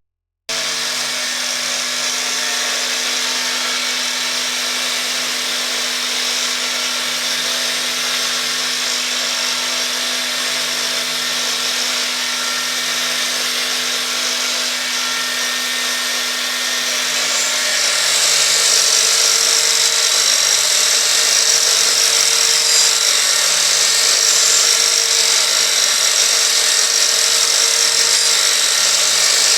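Homemade copy-carving machine running: a 125 mm IPPROM angle grinder fitted with a three-tooth saw disc whines steadily, with the machine's vacuum-cleaner dust extraction running alongside. About eighteen seconds in the sound grows louder and higher.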